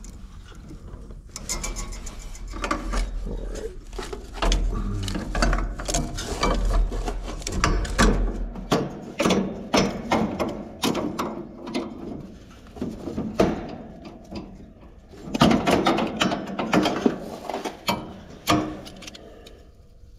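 Hand wrench clicking and clattering against the brass thermostatic expansion valve as its new power head is tightened on, in uneven runs of sharp metallic clicks.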